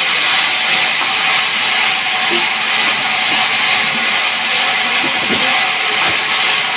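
Sawmill machinery running, a loud steady hissing noise.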